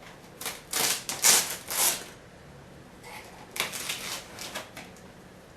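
Cardboard TV box being opened by hand: scraping and rustling of cardboard and packing, in two spells of about two seconds each.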